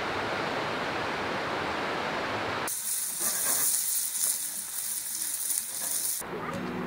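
Running water from a forest stream rushing steadily for the first few seconds. It gives way abruptly to diced bacon sizzling in a steel frying pan over a campfire grate, a bright hiss.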